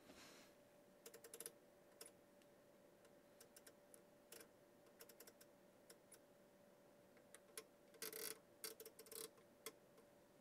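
Faint, scattered clicks and ticks of a Tektronix 577 curve tracer's front-panel knobs and switches being worked by hand. There is a quick run of clicks about a second in and a denser cluster around eight to nine seconds in, over a faint steady tone.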